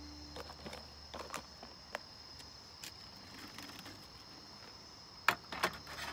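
Insects trilling steadily at night, a thin high continuous chirr, with scattered light clicks and knocks. Two sharper metallic clacks come near the end as a folding aluminium windscreen is set around a mess tin on a small camp stove.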